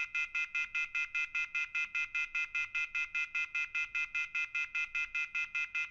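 Rapid electronic beeping: short high beeps repeating evenly about seven times a second, at one unchanging pitch.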